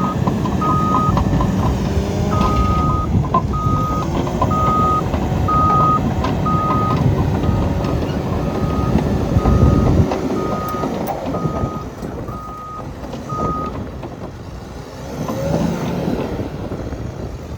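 Caterpillar D6N bulldozer's diesel engine running under load while its backup alarm beeps about once a second as it reverses. About ten seconds in the engine drops to a lower level, and the alarm stops a few seconds later.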